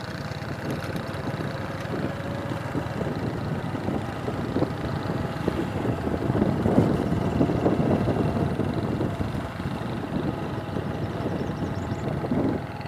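A vehicle's engine and road noise while driving, a steady low rumble that grows louder in the middle and drops off sharply near the end.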